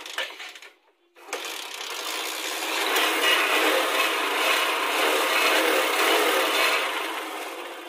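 A Bajaj Discover 125's single-cylinder four-stroke engine starts about a second in and is revved up. It holds at high revs for several seconds, then eases back down.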